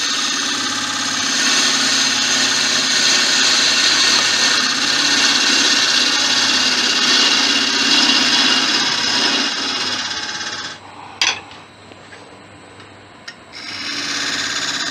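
Lathe gouge cutting the face of a spinning wooden blank, a steady shaving hiss over the low hum of the lathe. The cut stops about ten seconds in, a sharp click follows, and the cut resumes near the end.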